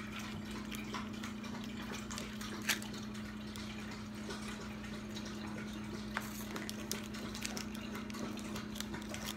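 A few faint clicks and crinkles as a plastic surprise-egg capsule is opened and the small wrapped toy packet inside is handled, the clearest click about a third of the way in. Under them runs a steady low hum.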